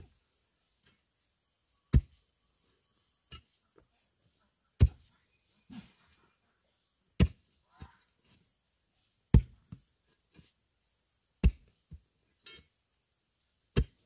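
A long-handled digging tool chopping into hard, compacted earth, a heavy blow about every two seconds. Lighter knocks of loosened soil and stones fall between the blows.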